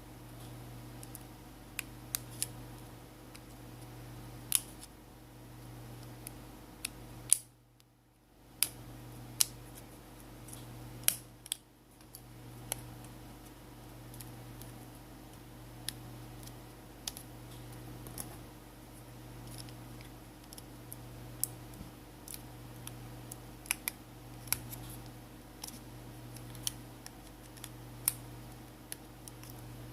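Scattered small, sharp clicks and ticks of a smartphone's plastic and metal parts being handled and prised apart during disassembly, over a steady low hum.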